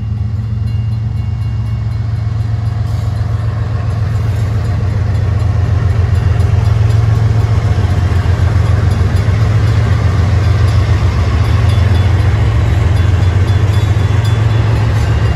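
Diesel freight locomotives, a Canadian Pacific and a Union Pacific unit, passing close by as they pull away from a stop: a steady low engine rumble with rolling noise, growing louder over the first several seconds and then holding.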